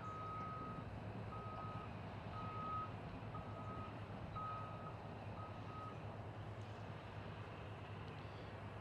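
A heavy vehicle's reversing alarm beeping six times, about once a second, then stopping about six seconds in, over the steady low hum of an engine running.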